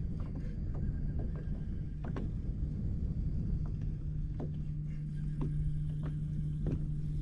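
Steady low hum of a boat motor, with scattered light taps and knocks.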